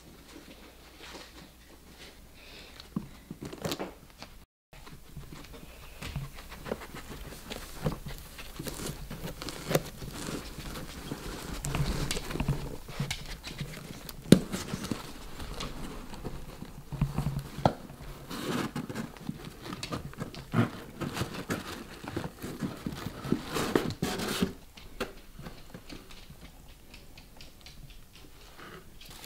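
Dogs panting and sniffing while pawing at a paper-wrapped gift box, with irregular scratches and taps on the cardboard. These are busiest through the middle and ease off near the end.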